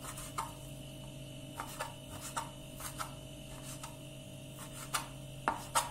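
Kitchen knife dicing raw lamb on a plastic cutting board: irregular taps of the blade striking the board a few times a second, the two loudest near the end.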